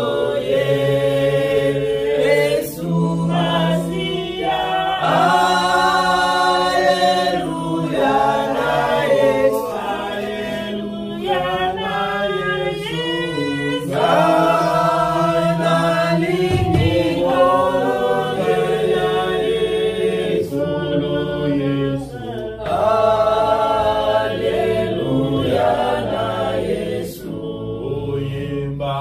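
A small church congregation singing a slow worship song, a woman's lead voice carrying over the other voices, with long held notes.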